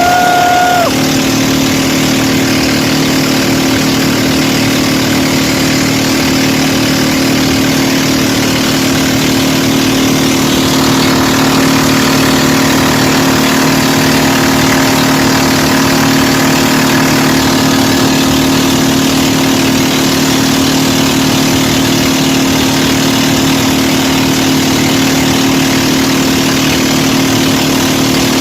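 An engine running steadily at an even speed, with a brief high tone in the first second.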